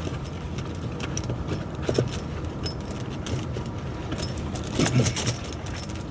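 Steel tractor tire chain links clinking and jangling in scattered clicks as the chain is worked over the tire tread, busiest about two seconds in and again near five seconds, over a steady low rumble.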